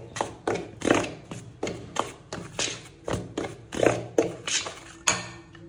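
A spoon stirring wheat flour, oil and thuthuvalai leaf paste in a bowl, knocking and scraping against the bowl about three times a second. The stirring stops near the end.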